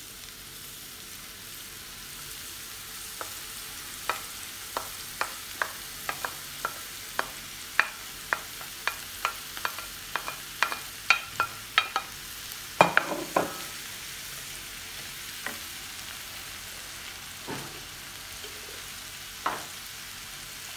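Sliced leeks sizzling in hot oil in a frying pan, a steady hiss, while a wooden spoon pushes them out of a bowl with sharp knocks against the bowl and pan, about once or twice a second; the knocks thin out after the middle.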